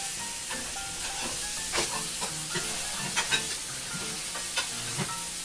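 Minced chicken-breast patties sizzling in oil in a frying pan over a gas flame. About six short sharp clicks and scrapes of a utensil against the pan come as the patties are turned.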